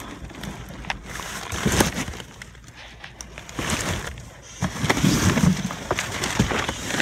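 Rummaging through trash: cardboard boxes and plastic garbage bags rustling, crinkling and scraping as they are shoved aside, with handling noise on the phone. The rustling gets louder and busier about halfway through.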